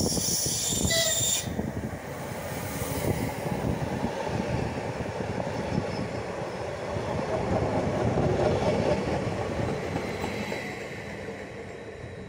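Leo Express Stadler FLIRT electric multiple unit passing close at speed, with a high hiss in the first second and a half. Then its wheels rumble and clatter over the rails, loudest partway through, and fade as it moves away near the end.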